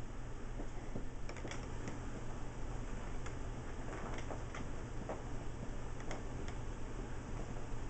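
Kittens' claws catching and scratching on a woven chair throw and a wooden chair frame as they climb and tussle: scattered light ticks and scrapes at uneven intervals, over a steady low hum.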